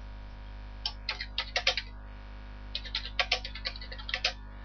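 Typing on a computer keyboard: a quick run of keystrokes about a second in, a short pause, then a second longer run from a little before the middle.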